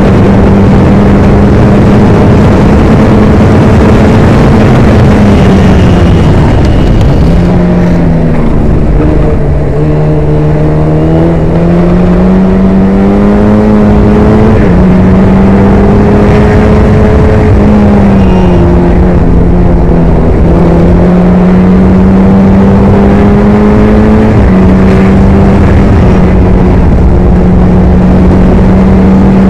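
Formula Ford race car's Ford Kent crossflow four-cylinder engine heard onboard, very loud and near flat out. Its pitch sags as the car slows for corners about seven and nineteen seconds in, then climbs again under acceleration, with gear changes around fifteen and twenty-five seconds.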